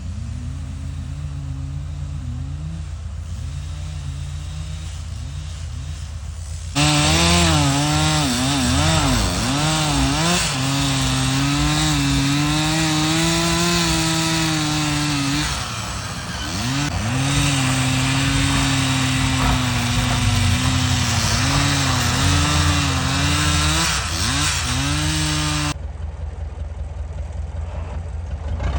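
Two-stroke chainsaw running, then from about seven seconds in much louder as it cuts into timber, its pitch dipping and recovering as the chain bites. It drops back to a lighter running sound near the end.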